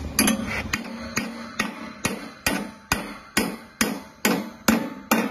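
Hammer striking a welded 10 mm steel shear stud on angle steel in a steady rhythm, a little over two ringing metal-on-metal blows a second, bending the stud over to test the weld.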